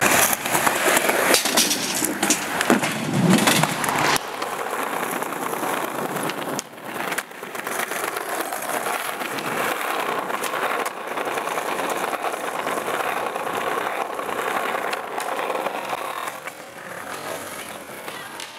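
Skateboard wheels rolling over smooth pavement, close to the microphone, making a steady gritty rolling noise. A few sharp clacks of boards popping and landing come in the first half.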